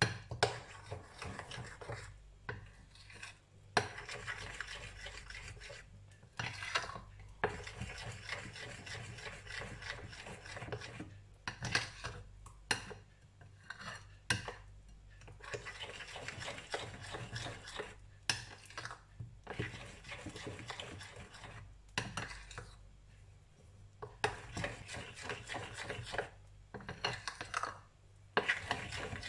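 A utensil stirring thick sweet-potato pancake batter in a glass bowl, scraping against the glass in long bouts with short pauses every few seconds and a few sharp clinks on the bowl.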